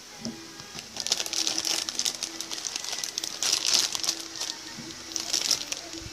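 Thin plastic bag around the model kit's runners crinkling as it is handled, in several bursts of crackling about a second in, around three and a half seconds, and again near five seconds.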